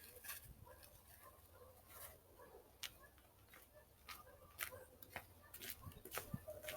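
Near silence with faint, scattered clicks and rustles of small things being handled, more of them in the last few seconds.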